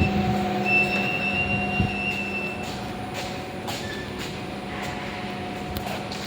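Lift machinery running with a steady hum and a thin high whine. The whine stops about two and a half seconds in and the hum fades a little, with a few light clicks.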